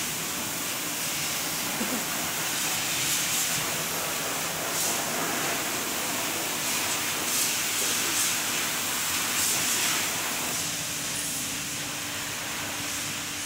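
Steady hiss of workshop background noise, with brief brighter surges every couple of seconds; a low steady hum comes in about three quarters of the way through.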